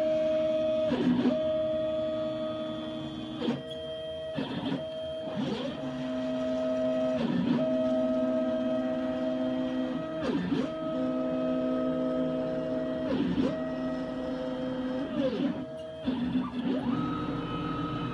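CNC router running an air cut, with the bit spinning above the bed and cutting nothing. The gantry's stepper motors whine in steady tones that change pitch from move to move and sweep down and back up each time the machine stops and reverses, about eight times, over the steady running of the Hitachi M12VC router spindle.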